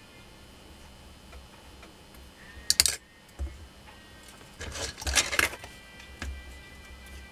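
Enamelled copper magnet wire rustling and scraping as it is pulled through and pressed into the slots of an angle grinder armature during hand rewinding, in two short bursts about three and five seconds in, with light handling knocks.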